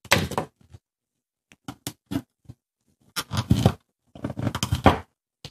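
A bone folder being rubbed hard along a fold in a small sheet of origami paper on a table, sharpening the crease: a short rustle and a few light ticks, then two spells of scraping strokes about three and four and a half seconds in.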